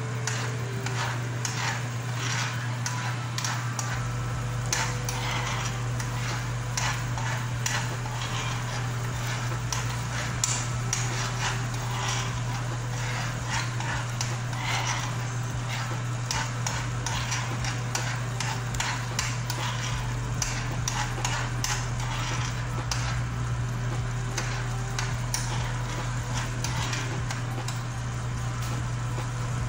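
Metal spoon stirring caramel sauce in a frying pan, scraping and clicking against the pan many times over, with the sauce sizzling; a steady low hum runs underneath.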